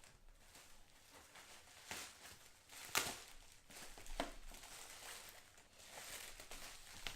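Packaging being handled and opened, rustling and crinkling, with sharp clicks about two, three and four seconds in.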